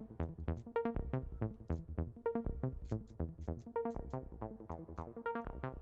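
Background electronic music: a quick, steady run of short plucked synth notes.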